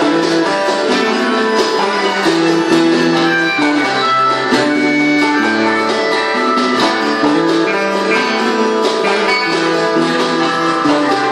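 Instrumental music led by guitar, with strummed chords and held notes played at a steady level.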